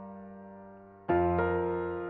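Slow solo piano music: a held chord fading away, then a new chord struck about a second in, with another note just after it.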